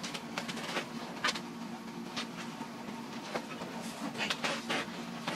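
Rustling and scraping from handling a packed suitcase and its contents, in short irregular bursts over a steady low hum.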